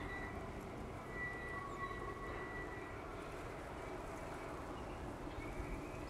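Low, steady rumble from a distant stopped freight train of empty hopper cars and its diesel locomotives. A faint, steady high-pitched tone sounds from about a second in until about three seconds.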